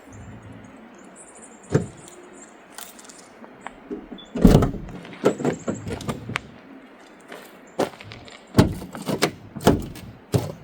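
Irregular knocks and thumps of objects being handled and moved about inside a van, the loudest about four and a half seconds in and several more close together near the end.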